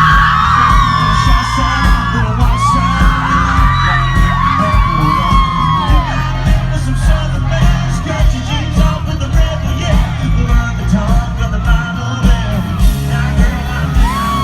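Live concert music with a heavy, pounding bass, heard from within the audience, with crowd members yelling and whooping over it through the first six seconds and once more near the end.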